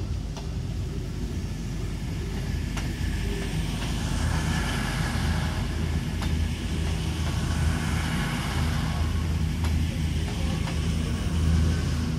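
Virgin Voyager diesel multiple units running with a steady low diesel drone from their underfloor engines, as a train moves slowly past on the rails.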